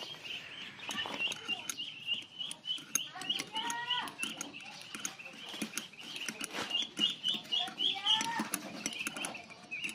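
Outdoor background of birds chirping rapidly and continuously, with two short animal calls about 3.5 and 8 seconds in, and faint clicks of hand tools on the valve adjuster.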